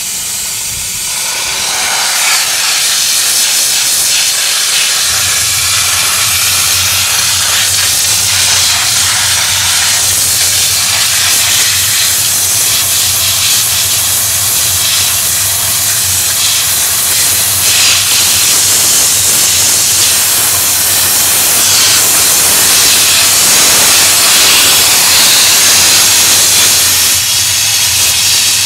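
Dry-steam jet from an industrial steam cleaner's wand, a loud steady hiss as the steam is sprayed onto a car's brake disc and caliper to degrease them. A steady low hum comes in about five seconds in.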